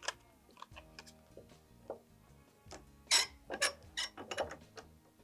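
A few sharp metallic clicks and clanks, bunched between about three and four and a half seconds in, as a bench vise is worked closed on cardstock-padded jaws. Faint background music with steady held notes runs underneath.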